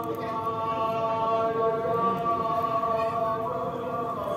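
A voice chanting one long, held note that shifts to a new pitch near the end, over the steady hiss of falling rain.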